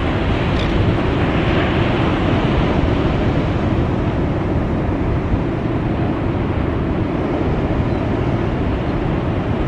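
Steady low rumbling noise of wind buffeting the microphone, mixed with the wash of breaking surf.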